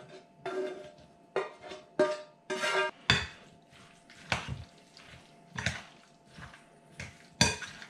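Spoon knocking and scraping against a glass mixing bowl as a thick, creamy chicken and vegetable mixture is stirred, in irregular knocks roughly a second apart, some ringing briefly.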